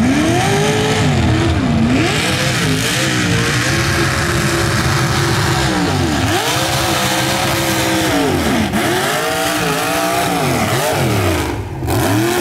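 High-horsepower mud bog truck engine revving hard, its pitch swinging up and down many times in quick succession. There is a brief drop near the end before it revs up again.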